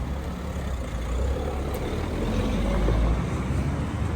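A motor vehicle passing close by on a city street, its engine rumble building to a peak about three seconds in and then falling away.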